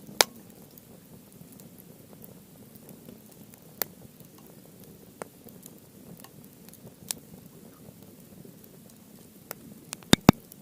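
Wood fire of softwood and hardwood burning in a steel fire stand, crackling with a low steady flame rustle. Sharp single pops come every couple of seconds, and a quick cluster of loud pops near the end.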